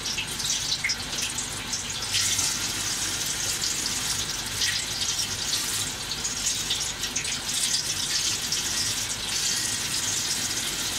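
Kitchen faucet running steadily over leafy greens held in a plastic colander as they are rinsed, the water splashing into a stainless steel sink.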